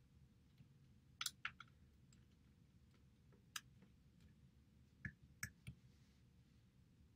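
Near silence: room tone with a few faint, short clicks scattered through it.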